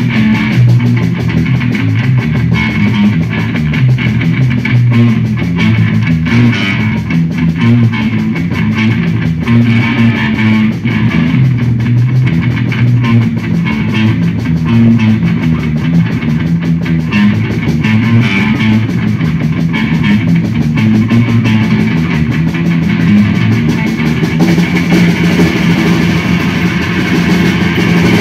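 Electric bass guitar played through effects pedals with a drum kit, live and loud, dense low notes under drum hits. Near the end the music settles into a steady held drone.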